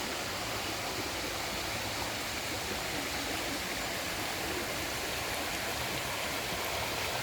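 Heavy rain falling steadily, an even rushing hiss with no let-up.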